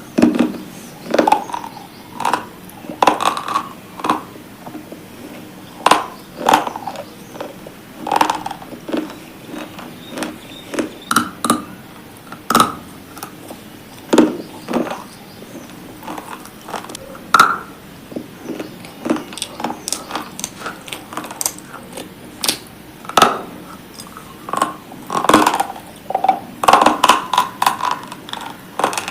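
A person biting and chewing hard, brittle pieces close to the microphone, with sharp irregular crunches about once or twice a second and quicker clusters near the end.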